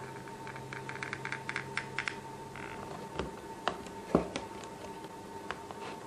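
Handling noise of hands fitting a small DC motor pump on its plastic mount into a clear plastic tub, with a hot glue gun in use. A quick run of light plastic clicks comes in the first two seconds, then a few sharper knocks, the loudest just after four seconds, over a faint steady tone.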